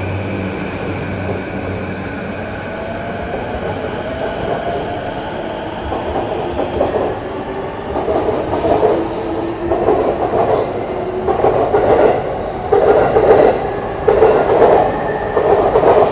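Electric commuter train accelerating along the platform: the traction motor whine rises in pitch, then from about halfway in the wheels clatter over rail joints, the beats getting louder and quicker.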